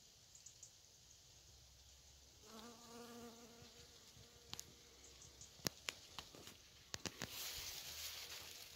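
A honeybee buzzing in flight at a steady pitch for about two seconds, starting a couple of seconds in. Then a few sharp clicks and a short rustle near the end.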